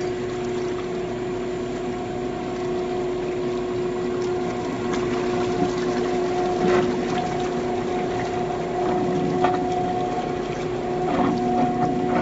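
A 300-litre vacuum mixer homogenizer running: a steady motor hum holding one constant tone, with a few scattered clicks and knocks.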